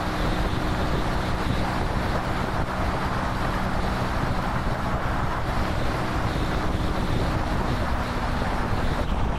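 Motorcycle engine running at a steady cruising speed of nearly 60 mph, its note holding level, under heavy wind and road noise on the microphone.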